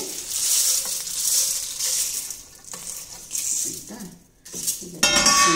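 Roasted dry red chillies, dal and peppercorns being tipped and pushed from a steel plate into a steel mixer-grinder jar: a dry rustling patter that comes in waves. About five seconds in, a loud metallic clink of steel on steel that rings on briefly.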